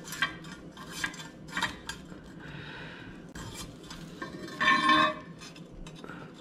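Chrome motorcycle handlebar being handled and turned: light metallic clinks and taps, with one louder ringing clank about five seconds in.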